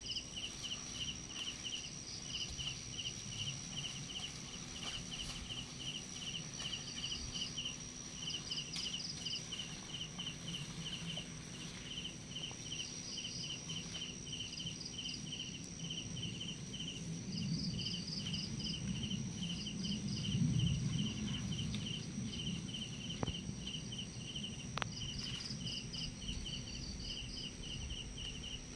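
Crickets chirping in a steady, even rhythm over a constant high insect whine, with a low rumbling noise that swells about twenty seconds in.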